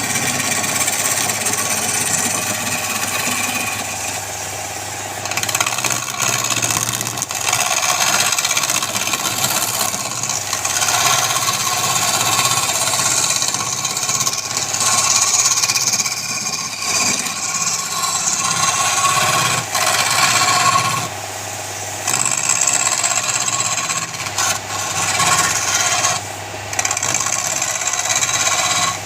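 Wood lathe running with a steady motor hum while a turning tool cuts the spinning wood, giving a rasping hiss that swells and fades with each pass and breaks off briefly a couple of times.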